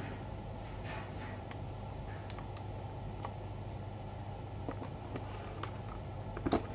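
A few scattered, irregular clicks from a mechanical keyboard, roughly one a second, with two louder clicks close together near the end, over a steady low hum.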